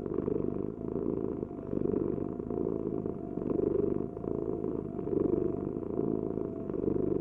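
Domestic cat purring steadily, the purr swelling and fading in even cycles about every second and a half to two seconds as the cat breathes in and out.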